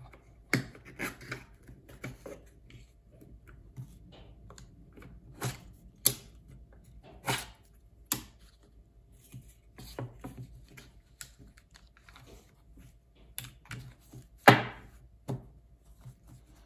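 Laser-cut wooden dice tower panels being pulled apart and stacked: irregular light clacks and knocks of wood on wood, the loudest near the end.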